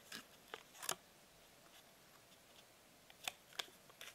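Faint handling noises of small boxed accessories: a few light clicks and rustles, in two clusters, one near the start and one a little after three seconds in, with near quiet between.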